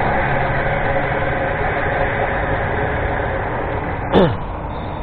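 Steady running noise while riding a hybrid e-bike on the road: a mix of engine-like hum and road or wind noise. About four seconds in, a brief falling tone.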